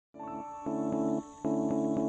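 Background music: sustained chords that change every half second or so, over a light regular beat, starting a moment after the opening.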